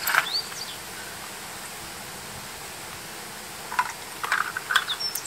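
A person taking several gulps of iced cola from a metal tumbler near the end, over a steady outdoor background hiss.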